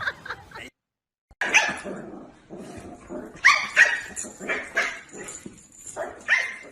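A dog barking, a string of short barks at irregular intervals that starts after a brief silence about a second in.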